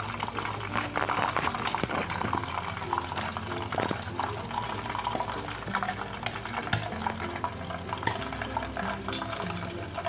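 Braised pigeon pieces deep-frying in a pot of hot oil, bubbling and crackling with many small pops. Background music plays underneath.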